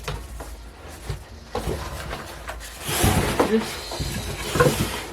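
Cardboard box and packing scraping, rustling and knocking as a heavy speaker is pushed and worked out of a tight box, with a few straining breaths.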